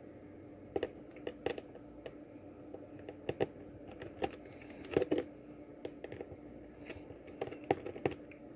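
Small screwdriver working the screws on the back of a HoldPeak HP-90 multimeter's plastic case: irregular light clicks and taps of the driver tip and tool against the plastic, with the loudest about three and a half and five seconds in.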